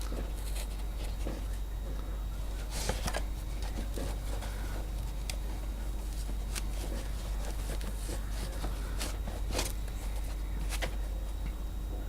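Handling noise from a microphone and its parts being unpacked and fitted into a shock mount: scattered clicks, knocks and rustles, a little louder around three seconds in and near the end, over a steady low hum.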